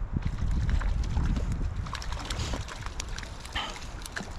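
Wind buffeting the microphone with a steady low rumble, overlaid by scattered light clicks and ticks.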